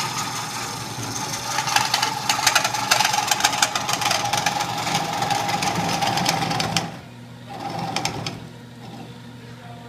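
Wood lathe spinning a burl bowl blank while a turning tool cuts into the wood with a rough, scratchy scraping over the steady hum of the lathe. About seven seconds in the cutting stops and the lathe runs on alone, quieter.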